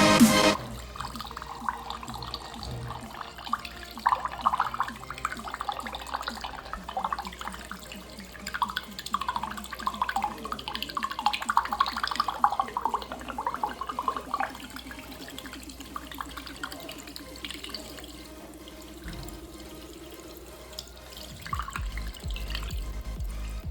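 Liquid pouring and gurgling into a container, its pitch rising steadily over several seconds as the vessel fills. A low hum comes in near the end.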